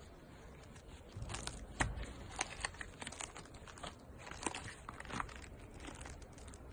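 Silicone mold being flexed and peeled off a cast resin crescent: a run of irregular crackles and sharp clicks as the piece pulls free, starting about a second in.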